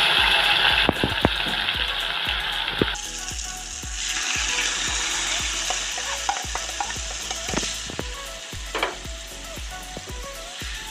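Marinated chicken pieces sizzling as they fry in hot oil in a steel kadai, with a slotted metal spatula and plate clicking against the pan as the pieces are added and stirred. The sizzle is loudest at the start and gradually dies down toward the end.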